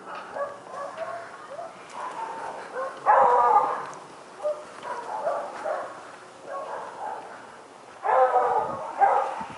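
A dog barking in a series of bursts, loudest about three seconds in and again about eight seconds in.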